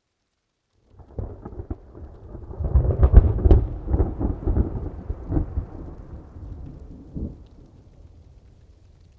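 A thunderclap: it starts suddenly about a second in with crackling, builds to its loudest crack a couple of seconds later, then rolls off into a long, fading rumble.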